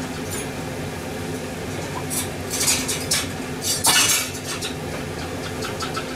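Dishes and metal utensils clattering in a couple of short bursts, about two seconds in and again near four seconds in, over a steady low hum.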